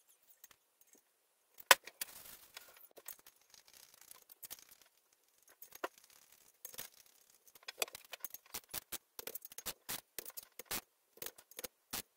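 Socket ratchet clicking in quick runs as new spark plugs are screwed down into an engine's cylinder head, with a sharp metal clink of tools about two seconds in.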